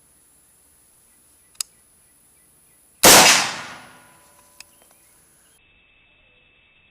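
A single shot from a 5.56 mm AR-15 rifle fitted with a custom three-slot muzzle brake. It comes about three seconds in as one sharp report that rings out and fades over about a second and a half. A faint click comes about a second and a half before the shot.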